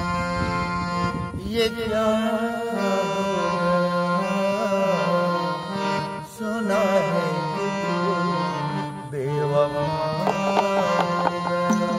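An elderly man sings a Hindi film song in a folk style, with wavering ornamented phrases, accompanying himself on a bulbul tarang (keyed Indian zither) over a steady drone. A small dholak hand drum is played alongside.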